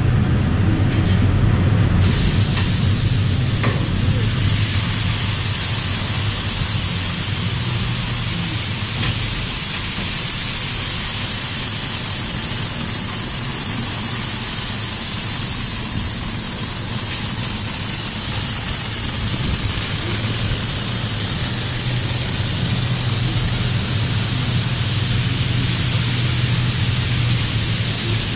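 Automatic car wash spraying water over the truck's roof and windshield: a steady hiss that starts suddenly about two seconds in, over a steady low hum.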